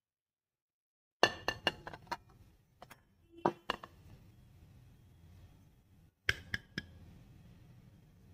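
Aluminium pressure cooker clinking and knocking against a ceramic plate as it is turned upside down onto it to demould a cake: a quick run of sharp clinks about a second in, a few single knocks around three to four seconds, and another short run of four at about six seconds.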